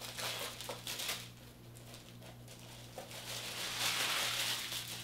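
Packaging being handled and unwrapped by hand: light clicks and crinkling, then a longer rustle about four seconds in.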